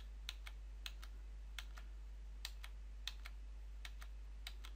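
About a dozen light clicks from a computer mouse and keyboard, several coming in quick pairs, over a steady low hum.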